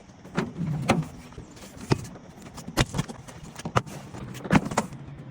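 A series of sharp knocks and clanks, about eight spread irregularly over five seconds, the first two with a brief low ring.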